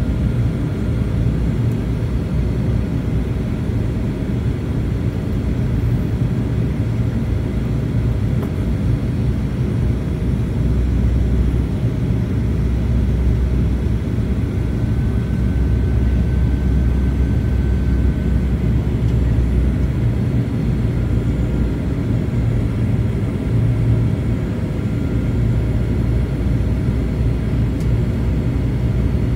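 Cabin noise inside a Boeing 737-900 on approach: a steady, low rumble of the CFM56 engines and airflow past the fuselage.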